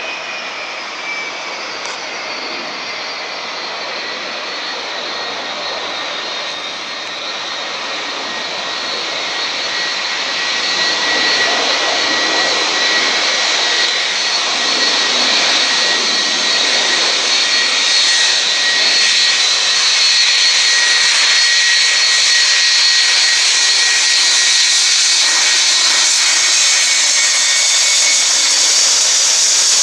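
Boeing 757 jet engines running, a broad rush with a steady high whine over it that dips slightly in pitch in the first few seconds; it grows louder about ten seconds in and then holds.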